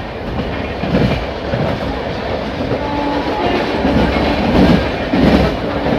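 A train running at speed on the track: a continuous rumble of wheels on rails with clatter over the joints and a few louder knocks.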